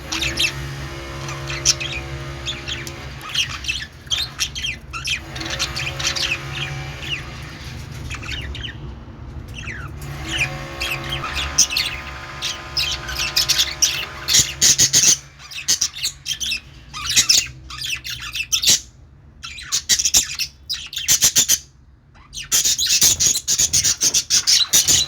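Budgerigars chirping and chattering, with sharp squawks. The calls come in dense runs, thin out to scattered loud chirps past the middle, and bunch up again near the end.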